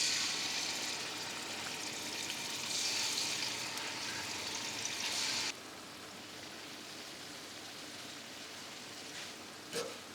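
Marinated chicken pieces sizzling in hot oil in a pan. The sizzle drops suddenly to a quieter hiss about five and a half seconds in, and there is a brief knock near the end.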